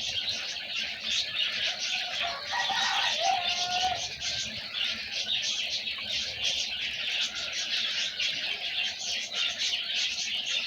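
Many small birds chirping together in a dense, continuous chatter of short high calls. About two and a half seconds in, a lower call with a held, slightly gliding note stands out for about a second and a half.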